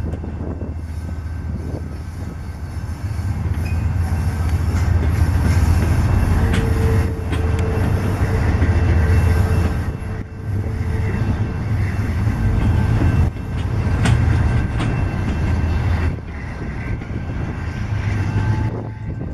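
Double-stack intermodal freight train passing close by: a CSX diesel locomotive running with a low rumble, then container well cars rolling past on steel wheels. A faint steady wheel squeal, from the curving track, comes in from about six to fifteen seconds in.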